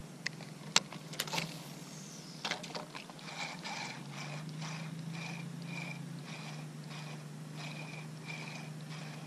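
Spinning reel winding in line on a spinning rod, a regular pulse about twice a second as the handle turns, after a few sharp clicks in the first second and a half.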